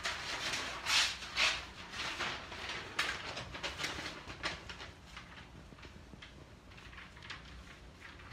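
Paper and fabric rustling as they are lifted and smoothed down by hand, in a run of quick rustles loudest in the first few seconds, then fainter rubbing.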